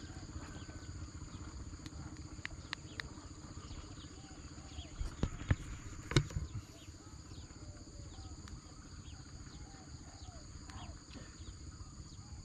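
A steady high-pitched insect chorus with pulsing low croaks and many short repeated animal calls. A few sharp clicks come in between two and three seconds in, and a handful of louder knocks come about five to six seconds in.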